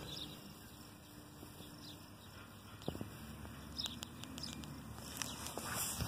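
Faint outdoor ambience: a light wind rumble on the microphone, with a few small clicks about three and four seconds in.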